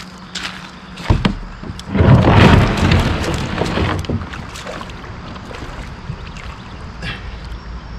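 Wind buffeting the microphone on a moving kayak, with a few knocks in the first second. The wind noise swells loudest from about two to four seconds in, then settles to a steadier rush.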